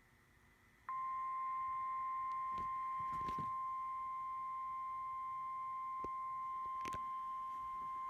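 NOAA Weather Radio 1050 Hz warning alarm tone: a single steady, high beep that starts abruptly about a second in and holds. It is the attention signal that comes before a severe thunderstorm warning. A few faint clicks are heard over it.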